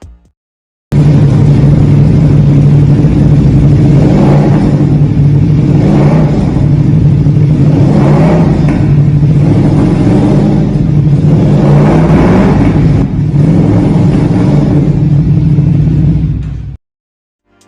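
CFMoto SR C21 motorcycle engine idling, with the throttle blipped repeatedly about every two seconds in a rev sound check.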